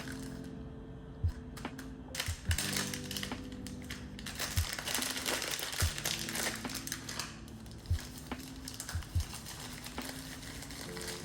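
Packaging crinkling and rustling for several seconds, with scattered light taps and clicks as a blind box is handled and opened, over soft background music.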